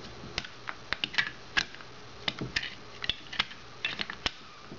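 Irregular light clicks and taps of hard plastic parts being handled and fitted together: pieces of a PiMag Waterfall water filter unit being put back together.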